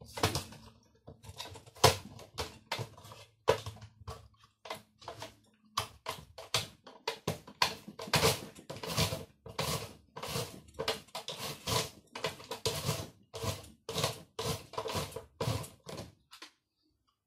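Red plastic mandoline slicer in use: a vegetable held in the hand guard is pushed back and forth over the julienne blade insert, giving a long series of short scraping strokes. They come unevenly at first, then about two a second from about six seconds in, and stop shortly before the end.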